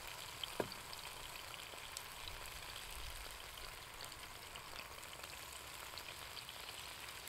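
Sausages and bacon frying in a pan: a faint, steady sizzle with light crackles, and a single click a little over half a second in.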